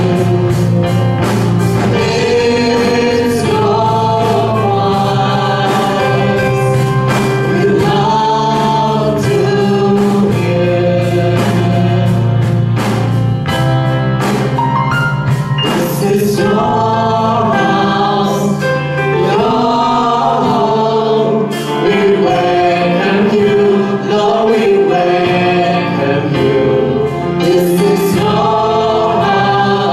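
A group of male and female singers on microphones singing a gospel worship song together, backed by a live band with drums, cymbals and a steady bass line.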